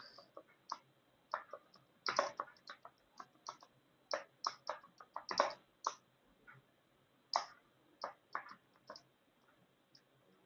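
Typing on a computer keyboard: faint, irregular key clicks in short runs with brief pauses between them.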